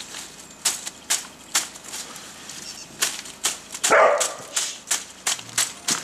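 Sharp, regular clicks of a sickle cutting leafy twigs from a branch, about two strokes a second, with one short, louder sound about four seconds in.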